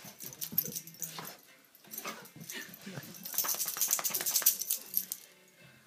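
A Rottweiler having a frenzied play fit, scuffling and lunging about, with a loud burst of rapid clicking and rustling from about three to five seconds in.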